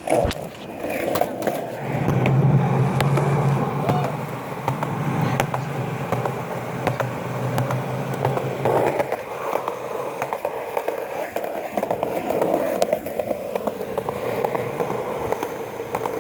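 Skateboard wheels rolling fast downhill on pavement: a continuous rolling rumble broken by many sharp clicks.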